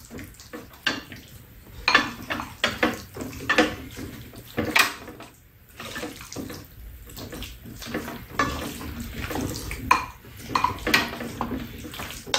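Chopsticks and a spoon tapping and scraping against a frying pan and bowls while rice and chicken are scooped and mixed, in irregular sharp clinks.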